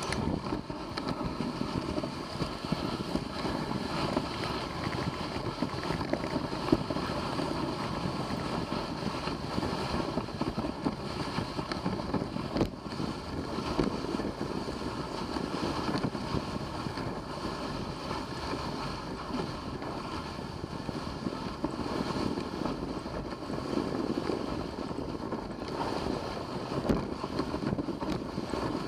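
Steady rushing noise of a dog sled on the move over snow, with wind on the microphone.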